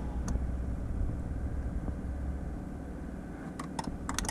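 Steady hum of the car's heater blower fan running with the key on and the engine off. A few short clicks come near the end, the clicking of the key-on, engine-off self-test.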